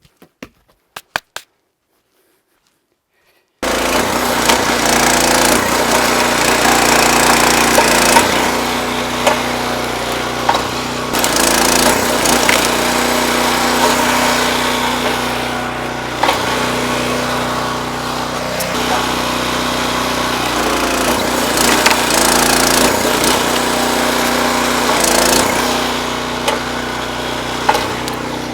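A few faint clicks, then a gas-engine wood splitter starts in suddenly about three and a half seconds in and runs steadily at a constant speed, with scattered sharp cracks and knocks from logs being split.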